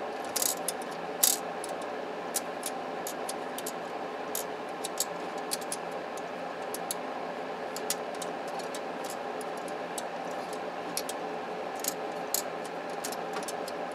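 Scattered small clicks and taps of a plastic cordless phone handset casing and small screws being handled as the handset is screwed back together, a few louder clicks in the first couple of seconds, over a steady background hum.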